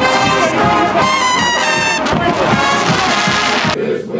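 Brass band playing loudly with trumpets and trombones, stopping suddenly near the end as voices come in.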